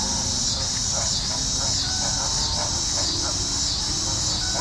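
Chorus of singing insects: a dense high-pitched buzz that swells and fades in a steady rhythm, about three pulses every two seconds, over a low steady rumble.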